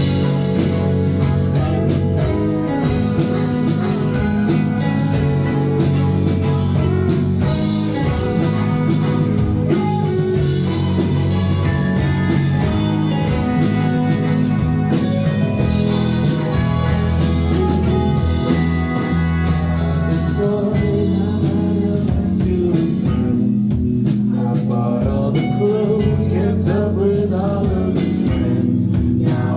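A band playing a song live, with singing over the instruments.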